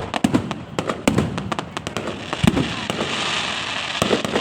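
Fireworks going off: a rapid, irregular series of bangs and sharp cracks from bursting shells, with a thicker crackling hiss building about three seconds in.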